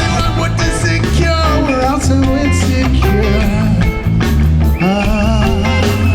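Hardcore punk band playing live and loud: distorted electric guitars, bass and drums.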